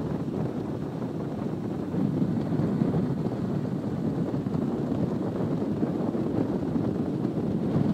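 Flex boat under way at speed: a steady low rush of motor and water with wind on the microphone, a little louder from about two seconds in.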